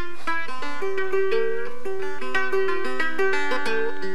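Homemade banjo, with screw-eye tuners and a head made from the bottom of a peanut butter bucket, picked in a quick, steady run of plucked notes as an instrumental tune.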